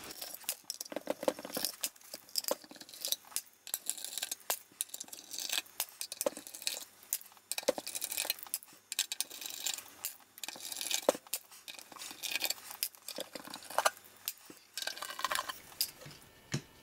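Small cover screws being undone with a hand screwdriver and handled: a string of irregular light metallic clicks, scrapes and clinks.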